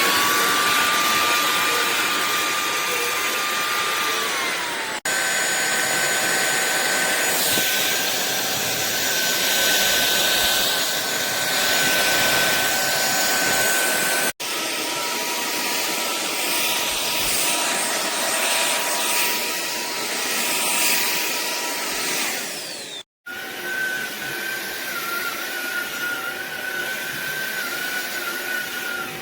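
SunSare X7A cordless stick vacuum's motor running with a steady high whine. Its pitch steps up just after the start and drops back down a little before five seconds, and the sound breaks off abruptly three times.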